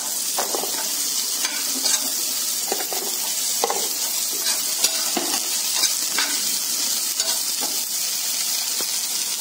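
Chopped okra sizzling steadily in hot oil in a kadai, stirred through with irregular scrapes and knocks against the pan.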